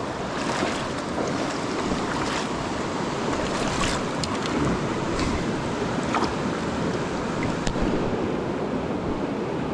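Shallow, rocky mountain stream running over stones: a steady rushing wash of water, with a few faint short splashes over it.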